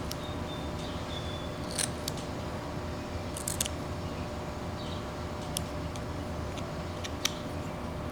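Carving knife slicing into wood: a few short, sharp cuts spaced a second or two apart over a steady background hum.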